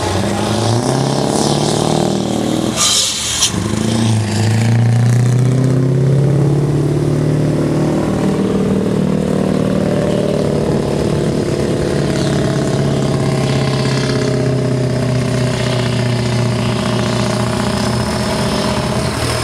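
Scania R500 truck's V8 diesel pulling away under full load with a heavy trailer and climbing a steep hill. The engine note rises over the first few seconds, with a brief dip and hiss about three seconds in. It then holds a strong, steady note as the truck labours uphill.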